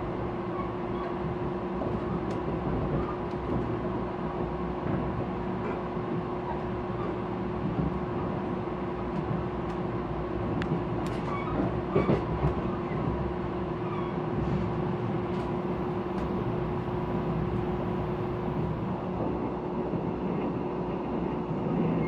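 Mugunghwa passenger train heard from inside the carriage while running: a steady rumble with a constant hum, and a few sharp clicks about halfway through.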